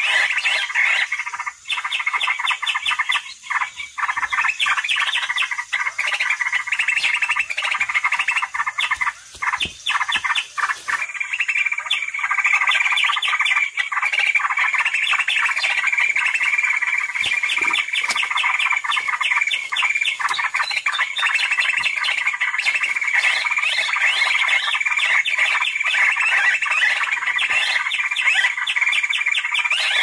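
Cucak ijo (greater green leafbird) calls in a bird-trapping lure track: a dense, unbroken chatter of rapid high notes. About eleven seconds in, the chatter becomes thicker and more even.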